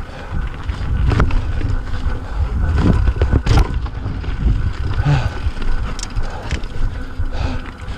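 Yeti mountain bike riding along a dirt trail: wind buffeting the microphone over a low tyre rumble, with several sharp clacks and rattles of the bike over bumps.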